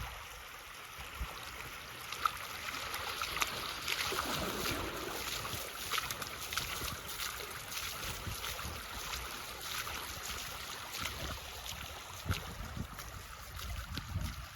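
Storm floodwater running and splashing: a steady rushing hiss with many small splashes, and a low rumble of wind on the microphone at times.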